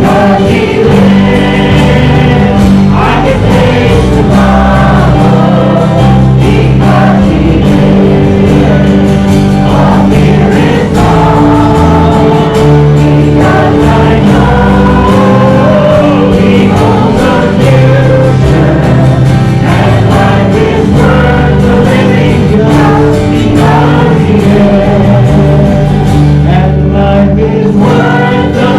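Gospel music: a group of voices singing together over steady instrumental accompaniment with sustained bass notes.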